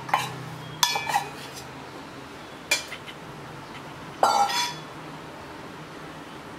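Metal utensil clinking against a stainless steel pot of grated pumpkin and jaggery: four separate clinks, the loudest about four seconds in, ringing briefly.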